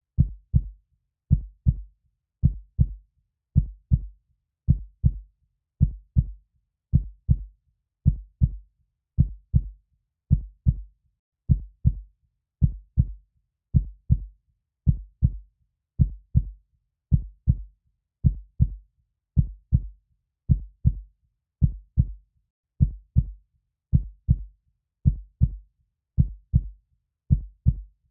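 Heartbeat sound: a slow, steady lub-dub, each beat a pair of deep, muffled thumps, repeating about once a second with silence between beats.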